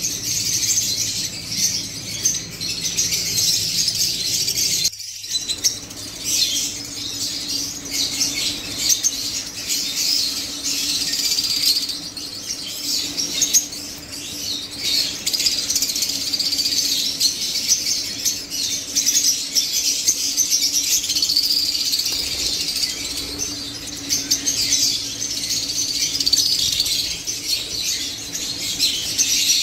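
Lovebirds chattering: a continuous stream of high, shrill chirps and twitters from several birds, with a brief break about five seconds in. A faint steady low hum runs underneath.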